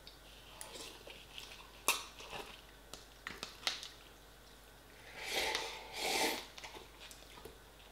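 A person eating instant rice noodles from a pot with a fork: small clicks and chewing, then two loud slurps, about five and six seconds in, as the noodles are sucked from the pot's rim.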